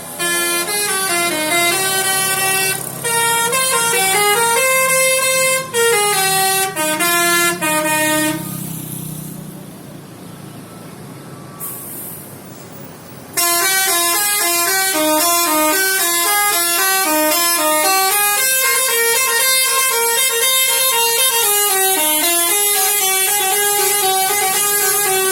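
Basuri V.3 telolet multi-tone horn on a bus playing a stepped, multi-note tune. It breaks off about eight seconds in for a few seconds of quieter background noise, then starts the tune again about thirteen seconds in.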